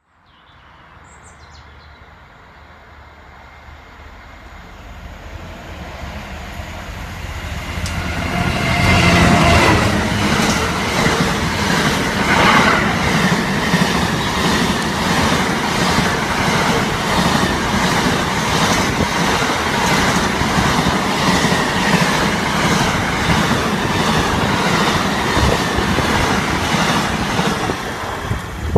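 A Class 66 diesel-electric locomotive under power comes closer and grows steadily louder, and its engine note drops in pitch as it passes about nine seconds in. A long train of container wagons follows, running past with a steady, regular clickety-clack of wheels over the rail joints.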